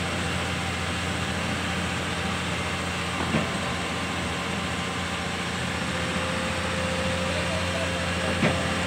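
Komatsu PC210 LC excavator's diesel engine running steadily under load as the machine crawls down off a lowbed trailer, with two short sharp clanks, about three seconds apart, from the machine.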